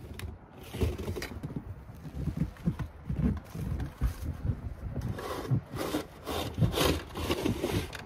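Snow shovel scraping and scooping snow, a quick, irregular run of scrapes with dull thumps as the snow is dug and tossed.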